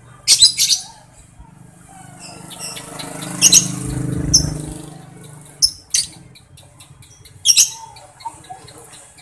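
Lovebird giving short, shrill calls in little clusters: a quick burst about half a second in, then single calls and pairs spaced through the rest. A low rumble swells and fades in the middle.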